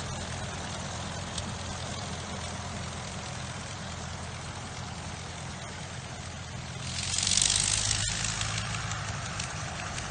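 Nine-cylinder Le Rhône 80 hp rotary engine of a Fokker Dr.I triplane running at low power while taxiing, a steady drone. About seven seconds in, a loud rushing hiss swells for a second or so and fades.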